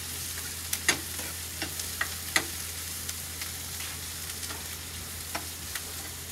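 Onions frying in oil in a small steel pan, sizzling steadily, while a metal spoon stirs them and clinks against the pan a few times.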